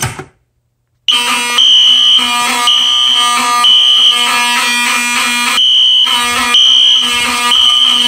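Fire alarm horns, a Wheelock 7002 and a Wheelock Exceder HSR, going off about a second in as a pull station activates the system. A steady buzzing horn sounds together with a higher, piercing tone that pulses about once a second.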